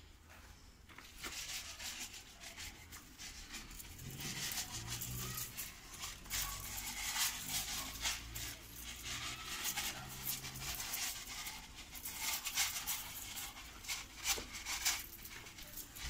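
Irregular crunching and pattering: footsteps on dry, gravelly garden soil while granular compound fertilizer is scattered by hand onto the earth.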